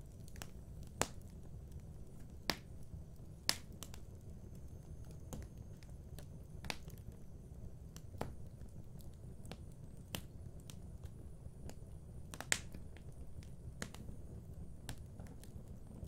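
Fireplace fire crackling: irregular sharp pops and snaps over a low steady rumble, the loudest snaps coming about a second in, twice more within the next few seconds, and once near the three-quarter mark.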